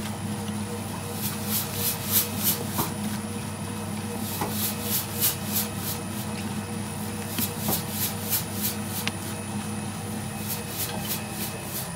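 Electric slime mixer's motor running with a steady hum, while the turning beater in the cloud slime batch makes repeated bursts of hiss several times a second. The hiss stops near the end.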